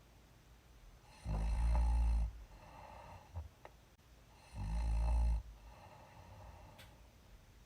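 A woman snoring with lip puffs: two loud, low snores about three seconds apart, with quieter breathing between them.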